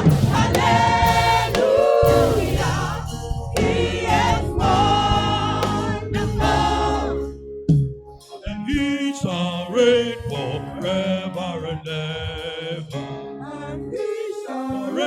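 A choir singing a gospel hymn in several voices, with a brief drop in loudness about halfway through before the singing carries on.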